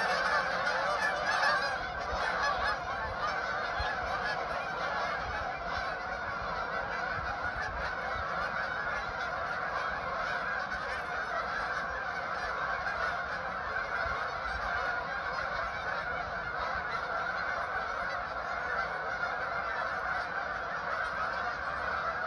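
A large flock of geese calling as it flies overhead, many overlapping honks merging into a continuous chorus, a little louder in the first couple of seconds.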